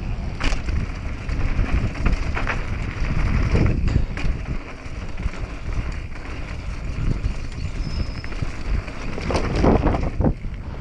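Mountain bike rolling fast down a dirt trail: steady tyre noise and wind buffeting the microphone, with a few sharp rattles and knocks from the bike over bumps.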